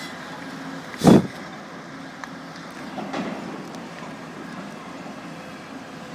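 Diesel engine of a hydraulic demolition excavator running steadily. A loud, short thump comes about a second in and a weaker one about two seconds later.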